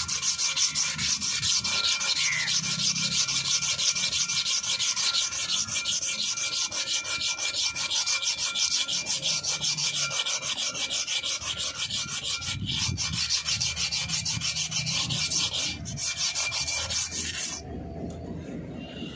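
Inner braking surface of a Mahindra Xylo's rear brake drum being rubbed down by hand with an abrasive, in rapid back-and-forth scraping strokes. This cleans the drum surface before new brake liners are fitted. The rubbing stops abruptly near the end.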